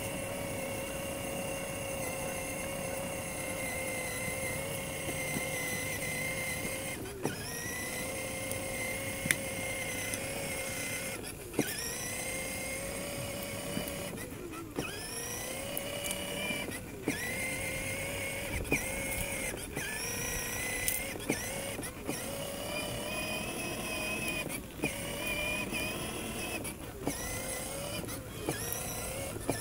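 Electric motor and plastic gearbox of a 6V Power Wheels ride-on quad whining steadily under way. It cuts out briefly several times, with a click, and rises in pitch each time it picks up speed again.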